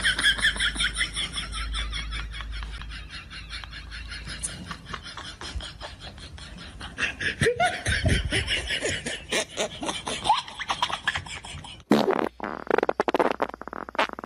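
People laughing hard, in rapid pulses of laughter. It breaks off about twelve seconds in, and a few sharp clicks follow.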